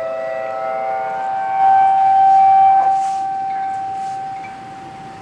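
A loud, steady, siren-like tone with several pitches held together and no rise or fall, one pitch standing out above the rest. It fades over the last two seconds. This is the unexplained 'strange sound' the recording was made to capture.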